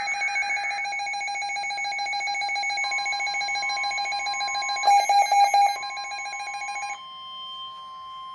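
Emergency weather alert tones. A short warbling data burst comes first, then a steady alarm tone. The National Weather Service's single-pitch warning alarm tone joins about three seconds in. The sound pulses loudly for about a second near the middle, and the first alarm cuts off about a second before the end, leaving the warning tone.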